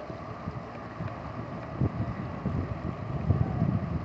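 Wind buffeting the microphone: an uneven, gusting low rumble that grows stronger in the last second or so.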